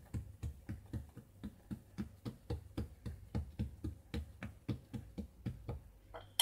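Fingertips patting and pressing cookie dough flat on a marble countertop: soft, low thuds at about four a second that stop near the end.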